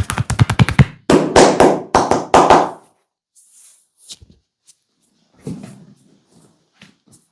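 Hands of a barber's massage: rapid rhythmic tapping strikes, about eight a second, stop about a second in, followed by a couple of seconds of loud rubbing and scratching, then a few faint soft taps.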